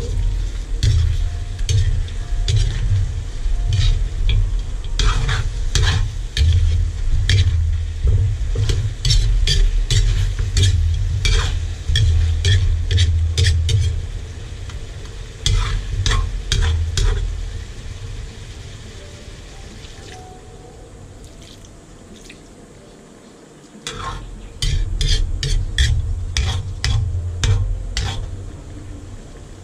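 Metal ladle scraping and clanking against an aluminium wok as chicken pieces are stirred in sizzling oil, in runs of quick strokes with a pause of a few seconds about two-thirds of the way through. A low rumble lies underneath.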